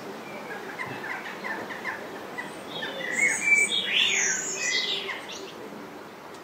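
Birds chirping and whistling: quick falling chirps at first, then louder, higher whistles and sweeping calls about halfway through, fading toward the end.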